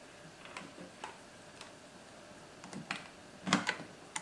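A few light plastic clicks and knocks from a hand handling a small power box and its cable plug, the loudest pair near the end as the connector is pushed in.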